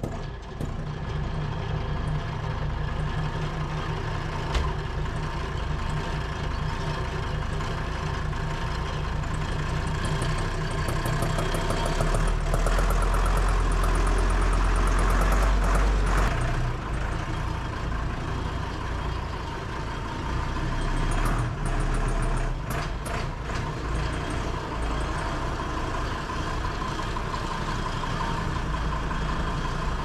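Deutz DX 90 tractor's air-cooled diesel engine running steadily, growing louder for a few seconds around the middle.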